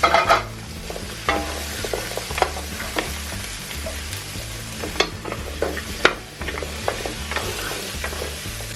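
Pork leg pieces sizzling in hot oil with sautéed garlic and onions, with a loud flare of sizzle at the start, then stirred so that the utensil knocks against the pan several times.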